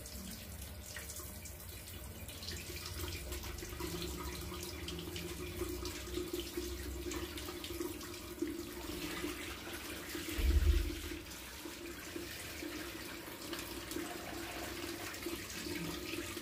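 Water spraying from a hose's shower nozzle through a wire birdcage as a pet parakeet is given a bath: a steady hiss of spray splashing on the cage, with a steady low hum beneath. A low thump about ten seconds in.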